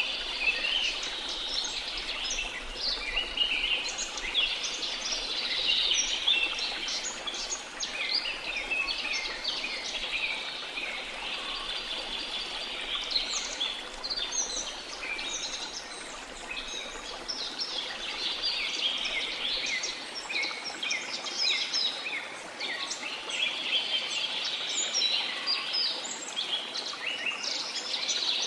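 Many small birds chirping and twittering continuously over a steady background hiss, in a dense chorus of short, high calls.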